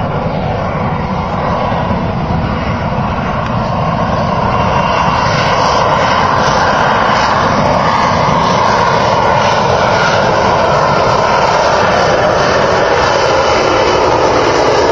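Airplane engine noise, a dense steady roar that grows steadily louder through the first half as the aircraft approaches.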